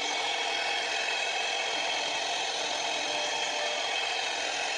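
CNC router spindle running steadily with a high whine as its small end mill cuts outlines into a plywood sheet.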